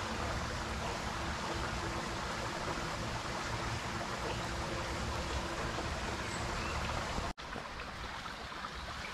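Steady rushing outdoor ambience, like flowing water, with no clear single event. It cuts out abruptly for an instant near the end and comes back a little quieter.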